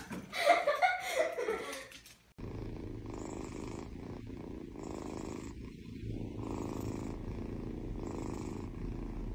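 Kitten purring steadily while being stroked, the purr swelling with each breath roughly every two seconds. It starts abruptly about two seconds in, after a short stretch of louder voice-like sound.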